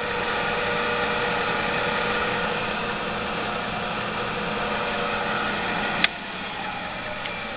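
RONG RF35 radial drill press running under power, its motor and spindle gearing giving a steady hum with a whine of several steady tones. A sharp click about six seconds in, after which it runs a little quieter.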